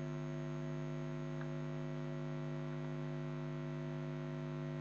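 Steady electrical mains hum: several constant tones stacked one above another, unchanging throughout.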